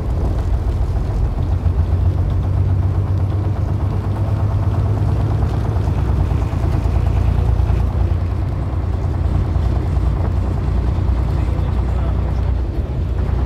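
Vintage bus driving at road speed: a steady, heavy low rumble of its engine mixed with road and wind noise.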